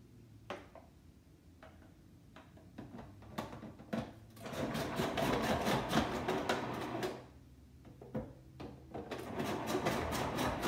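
Breville food processor dicing beets into cubes as they are pushed down the feed chute. The motor runs in two spells of a few seconds each, about four and nine seconds in, after a few light clicks.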